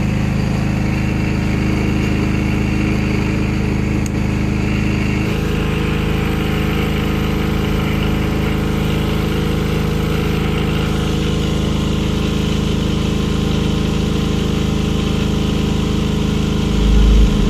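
A 5 kVA diesel generator running steadily, its engine note changing about five seconds in. Near the end, a deep bass from the sound system's speakers comes in.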